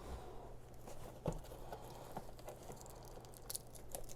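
Faint handling of trading-card packaging: scattered light clicks and soft rustles as a box of cards is opened.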